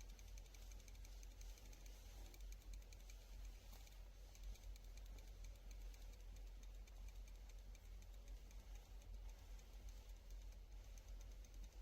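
Shimano Vanford spinning reel being cranked, giving off a faint, rapid clicking noise throughout. The owner reports the noise appears only when the spool is tilted below vertical and is silent with the spool perpendicular to the ground: a fault in the reel.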